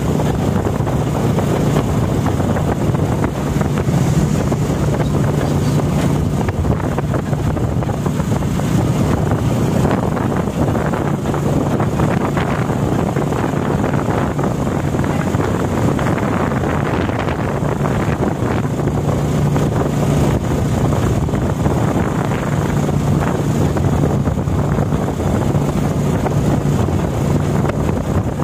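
Motorcycle engine running steadily while riding along a road, with wind buffeting the microphone.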